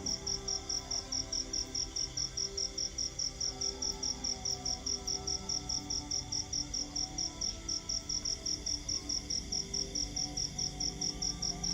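Crickets chirping in a rapid, even rhythm of high pulses, over faint background music.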